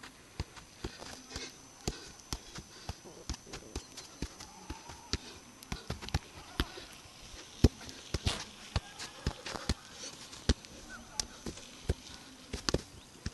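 A football being juggled: irregular thuds of the ball striking the player's feet and legs, about one to three touches a second, with one much louder kick about seven and a half seconds in.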